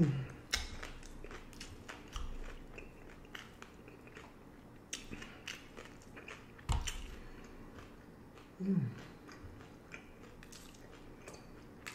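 Crunching and chewing on a hard-shell corn taco, the crisp shell cracking between the teeth in irregular crunches, with one sharper crack about seven seconds in. A short hum from the eater at the start, and another falling hum about nine seconds in.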